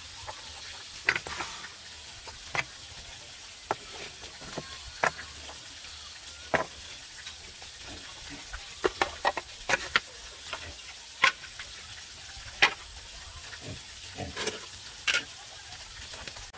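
Irregular sharp clinks and knocks of loose bricks and scraps of wood being picked up, knocked together and stacked, over a steady hiss.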